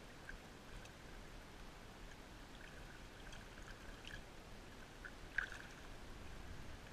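Quiet river water lapping and trickling around hands holding a salmon in the current, with scattered small drip-like ticks and one sharper tick about five and a half seconds in.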